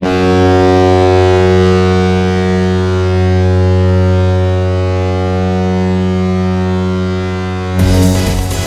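San Jose Sharks goal horn sounding one long, steady, low blast for nearly eight seconds. Near the end it gives way to a fast electronic dance goal song.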